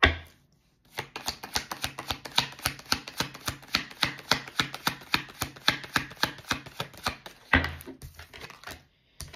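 A deck of tarot cards being shuffled by hand: the cards snap against each other in a fast, even run of clicks, several a second. A single thump comes at the very start.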